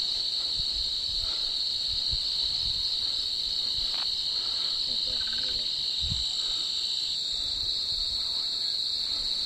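Steady, high-pitched chorus of crickets, one continuous shrill trill with no pauses; one of its higher layers drops out about seven seconds in. Under it are a few soft, low thumps of footsteps.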